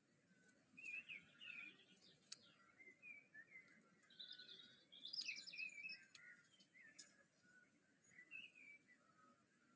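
Small garden birds chirping and twittering faintly in quick, varied phrases, with a few sharp clicks and a steady thin high-pitched whine underneath.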